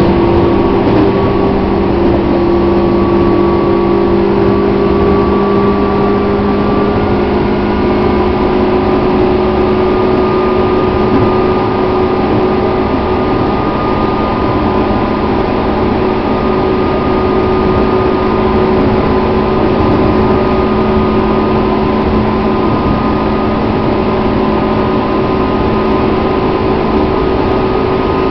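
Running noise of a 205 series electric commuter train heard from inside the carriage: a steady rumble of the moving train with a few held hum tones over it.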